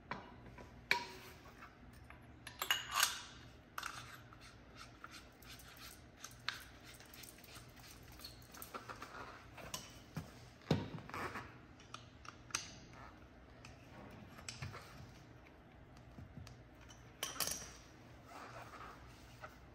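Metal hand tools and suspension parts clinking and knocking on a concrete floor as a shock absorber and its fittings are handled: scattered sharp clinks at irregular intervals, with one heavier knock about halfway through.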